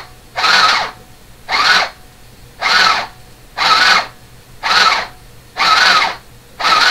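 LSS 202 mini sewing machine running in short bursts, about one a second and each about half a second long, as the foot pedal is pressed and let up while stitching a seam.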